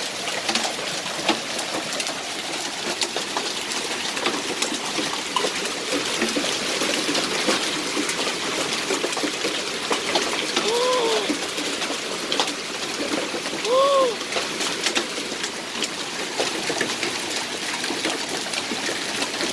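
Hailstorm of rain and quarter-sized hail pelting the yard and street: a steady hiss dotted with many sharp ticks of stones striking. Twice, about eleven and fourteen seconds in, a short rising-and-falling cry sounds over it, the second one louder.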